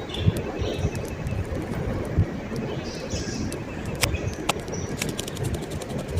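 Birds chirping in the background over a low rumble, with a couple of sharp clicks about two thirds of the way in and a quick run of faint clicks near the end.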